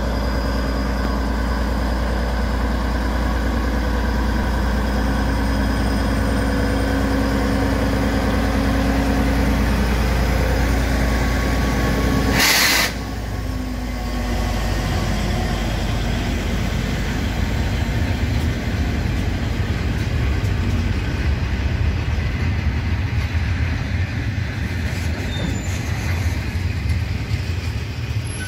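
Freight train passing behind a D146 diesel locomotive. The locomotive's engine drones steadily for the first half. About halfway there is a short, loud burst of noise, and after it the freight wagons roll past with a steady, rough rumble of wheels on rail.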